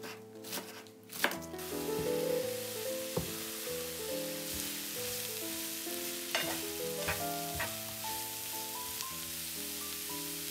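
A knife chopping through cabbage on a wooden board for about the first second and a half, then shredded cabbage, carrot and onion sizzling steadily in a frying pan as they are sautéed and stirred with a plastic spatula, with a few sharp knocks along the way.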